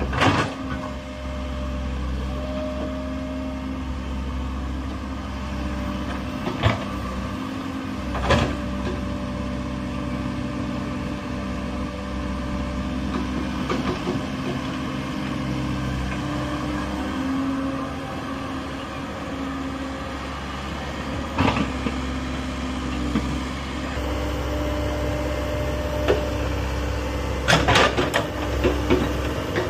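Komatsu PC130 crawler excavator working in mud: its diesel engine runs steadily, its pitch shifting now and then as the arm and bucket move. A few sharp knocks come from the bucket, with a cluster of them near the end.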